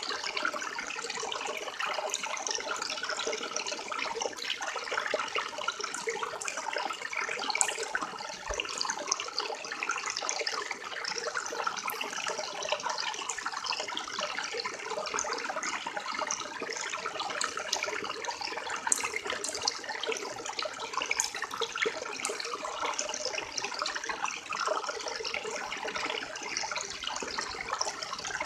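River water flowing and splashing steadily, a dense, even rushing with small splashes throughout.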